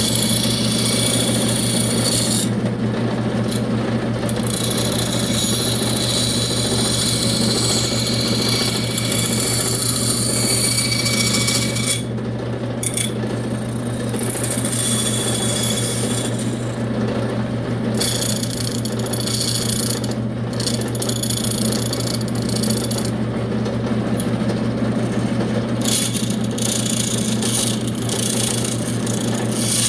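A power tool running steadily and cutting into wood. Its high-pitched cutting noise breaks off briefly several times while the motor hum carries on.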